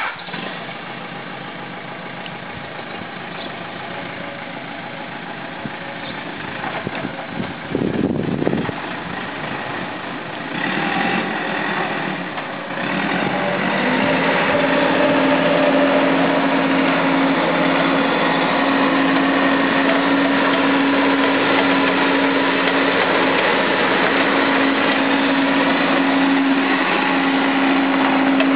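Caterpillar 432D backhoe loader's diesel engine idling steadily. The hum grows louder and firmer about halfway through, then holds at an even pitch.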